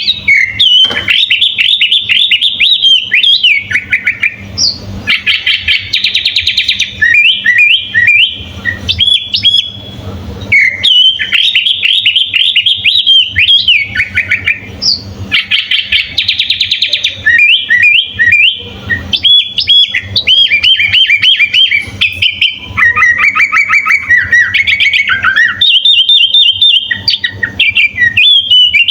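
Sooty-headed bulbul (kutilang) singing loudly and without a break: quick, varied whistled notes that bend up and down, with several bursts of fast trills along the way. The song is full of 'isian' fill-in phrases, the kind used as a master recording to teach other songbirds.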